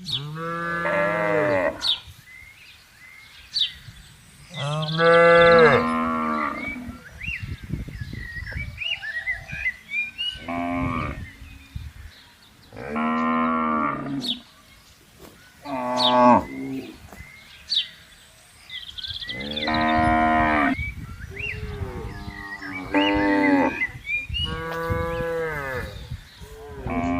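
Cattle mooing: about eight long calls a few seconds apart, some from more than one animal.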